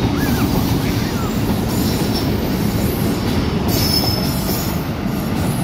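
Pakistan Railways passenger coaches rolling past on the track with a steady, loud rumble and rattle of wheels on rails. A thin, high wheel squeal comes in about four seconds in.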